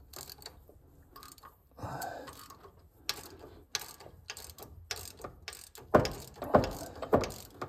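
Socket ratchet wrench clicking in uneven strokes as it loosens a homemade valve spring compressor on the rocker stud of a Chev 250 straight-six head, letting the valve spring back up. The clicks start faintly and get louder over the last couple of seconds.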